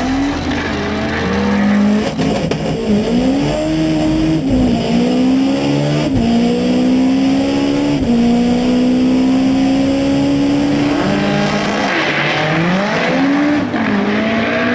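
Turbocharged Nissan SR20DET four-cylinder engine pulling hard through the gears on a drag run. Its pitch climbs and then drops sharply at each gear change, several times, with long, slowly rising pulls in the higher gears.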